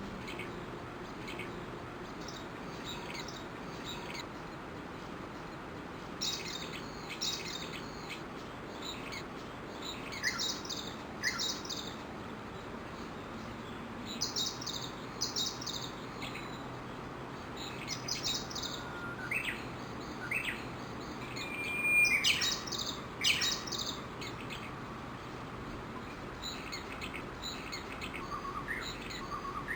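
Japanese bush warblers calling: clusters of short, high chirps every few seconds over a steady background hiss. The loudest burst comes a little past the middle, a brief held whistle followed by quick notes.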